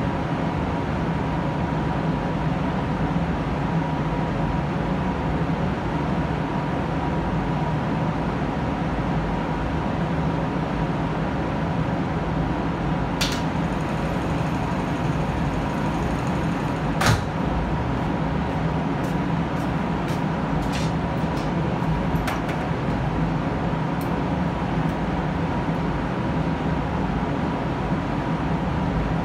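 Steady drone of a paint spray booth's ventilation fans running, with a faint hum. A few light clicks and one sharper knock come about halfway through.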